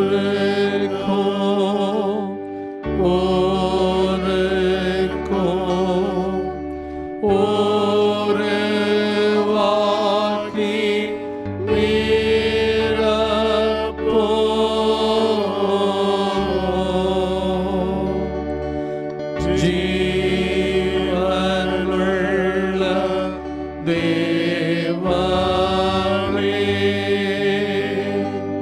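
Church song: a single voice singing a wavering, drawn-out melody over sustained instrumental chords that shift every few seconds.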